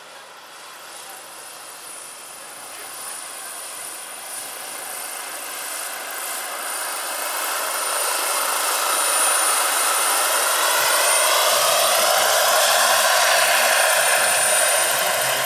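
Turbine-powered 1:6 scale K-MAX model helicopter (Phal Power GP70 turbine, twin rotors) approaching: the steady high turbine whine and the rotor noise grow louder over about ten seconds, then hold close by.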